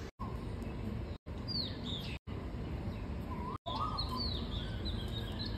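Birds chirping outdoors: short, quick downward-sliding calls over a steady low background hum. The sound cuts out for an instant four times.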